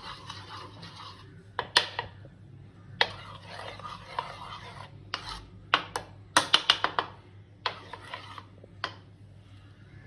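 Metal spoon stirring a thick flour-and-water batter in a bowl, with stretches of scraping and a run of sharp clinks of spoon against bowl.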